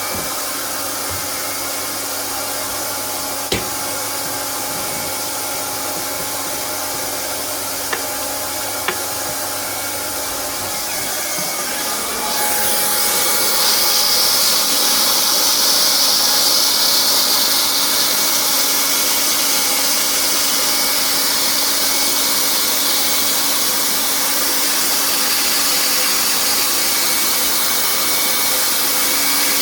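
Hot-air heat gun with a plastic-welding nozzle blowing steadily. About twelve seconds in it gets louder and hissier. A few light clicks come before that.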